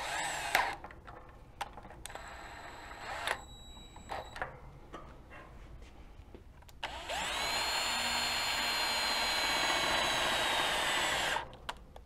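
Power drill spinning up and running steadily for about four and a half seconds, turning the threaded rod of a gas law apparatus to drive its piston down and compress the air in the cylinder. Before it, a few light clicks and knocks of handling.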